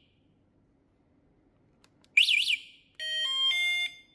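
Electric-bike anti-theft alarm answering a key-fob press with a quick double chirp, two fast up-and-down whoops, about two seconds in. About a second later a short electronic jingle of stepped beeps plays as the system switches on.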